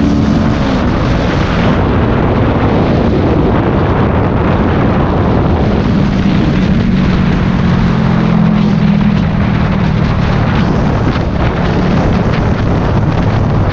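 Sport motorcycle at expressway speed: heavy wind buffeting on the microphone over the engine, whose note comes through more clearly from about six seconds in and drops lower near the end.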